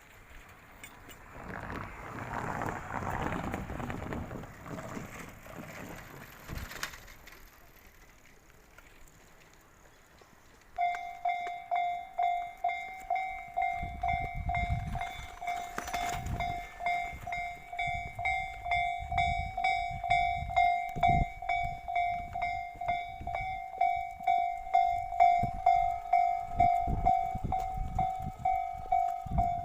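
Railway level crossing alarm starting about a third of the way in: an electronic bell ringing one steady tone in quick, even strokes, with low rumbling thuds beneath it. Before it starts, a softer passing rumble.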